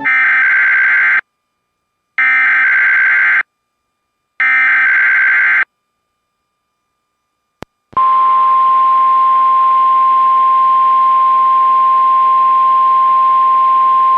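NOAA Weather Radio Emergency Alert System header: three short bursts of SAME digital data tones, each about a second long with a second's gap between them, coding a Required Weekly Test. After a click about eight seconds in, the steady 1050 Hz weather radio alert tone begins over radio hiss.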